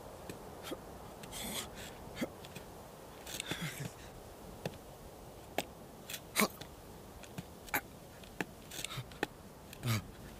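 Sparse sound effects for a sheep standing on a rock: scattered small sharp clicks, like hooves shifting on stone, and a few short breathy rustles, over a faint steady background hiss. A brief low sound comes near the end.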